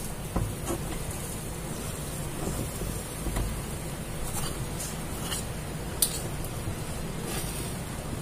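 Egg mixture sizzling steadily in a hot pan over a gas burner. There are a few light clicks about halfway through as the pan and its contents are handled.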